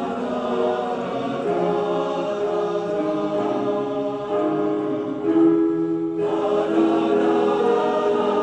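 Men's chorus in tenor-and-bass voicing singing together, holding long chords that change every second or two.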